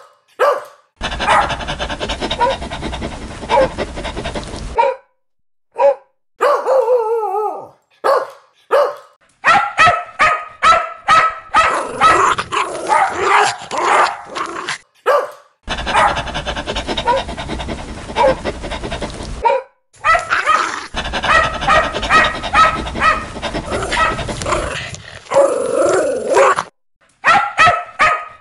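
Dogs barking loudly in quick runs of repeated barks. The barking comes as a string of separate recordings spliced together, each starting and stopping abruptly with short gaps between them.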